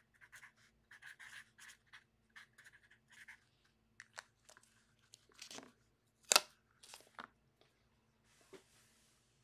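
Sharpie felt-tip marker scratching across a paper sticky note in a quick string of short strokes for about three seconds. Then come a few separate handling clicks as the marker and its cap are handled, the loudest a sharp click about six seconds in.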